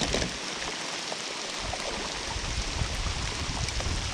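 Steady rain falling on the river, an even hiss.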